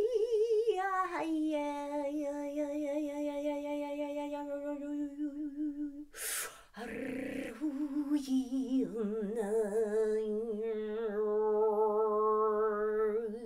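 A woman's voice holding long wordless sung notes with a slight waver: one note glides up and is held for about five seconds, then, after a short break for breath, a second, lower note is held for about six seconds.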